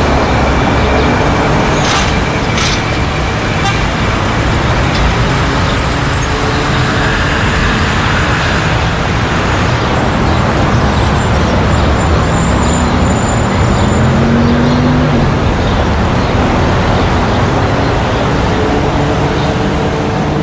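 Busy city street traffic: car and other vehicle engines running and passing in a steady dense noise with tyre sound. About two-thirds of the way in, one engine rises in pitch as a vehicle accelerates.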